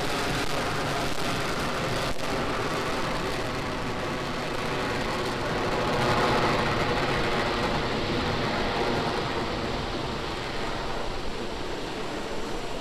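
Falcon 9 first stage's nine Merlin 1D engines rumbling during ascent just after liftoff, a dense steady rocket noise with a single crack about two seconds in. It swells about six seconds in and eases off slowly as the rocket climbs away.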